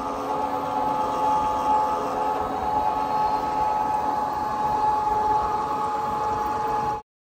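Go-kart running fast along the track: a steady whine from the kart over the rush of wind on the microphone, cutting off abruptly near the end.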